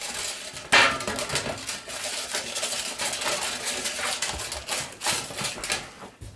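Bernese mountain dog eating from a stainless steel bowl, the metal bowl clattering continually as it feeds, with one sharp clank just under a second in.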